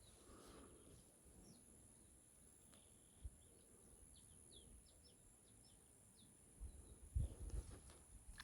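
Faint outdoor ambience with small birds giving a quick scatter of short, high chirps in the middle, over a steady high hiss. Low muffled bumps come in near the end.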